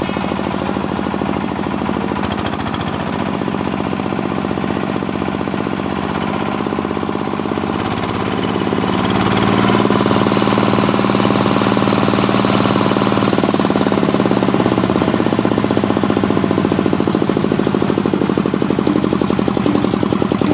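Small single-cylinder diesel engine running steadily with a fast, even thudding beat as it drives an oil palm frond chopper; the sound grows louder about nine seconds in and stays that way.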